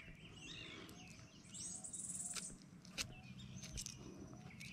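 Faint outdoor ambience of birds chirping, with a brief rustle about a second and a half in and a few small clicks.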